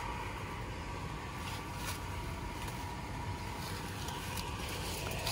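Steady low motor hum with a faint constant whine over it.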